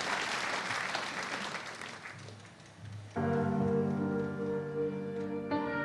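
Audience applause dying away over the first two and a half seconds, then a slow music intro starts about three seconds in with sustained piano chords, the chord changing near the end.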